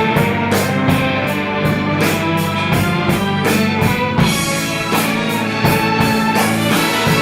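Rock music soundtrack with electric guitar and a steady drum-kit beat.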